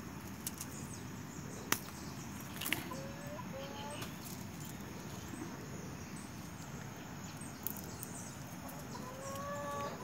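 Quiet outdoor background with a few small sharp clicks and snaps from hands handling a fruiting branch and its leaves, the loudest about two seconds in, and faint short bird calls in the middle and near the end.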